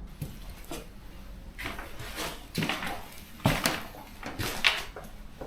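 A few short knocks and scrapes at irregular intervals, the loudest about three and a half and four and a half seconds in.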